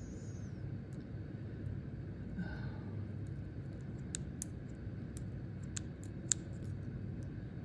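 A handful of sharp clicks, about half a dozen between four and six and a half seconds in, from bird netting being snipped away from a snake with a cutting tool, over a steady low hum.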